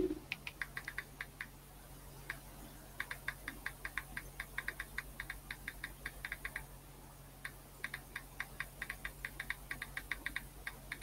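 Typing on a computer keyboard: quick runs of key clicks, with short pauses between bursts.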